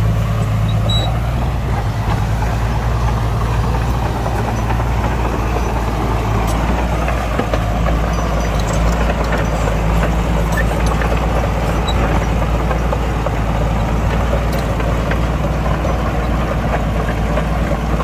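Heavy diesel earthmoving machinery running steadily, with a low engine note that holds throughout and no sudden events.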